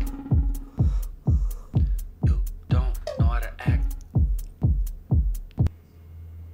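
Background music with a heavy electronic kick drum, deep booming beats falling in pitch about twice a second, with a voice over it briefly in the middle. The music cuts off abruptly near the end, leaving a low steady hum.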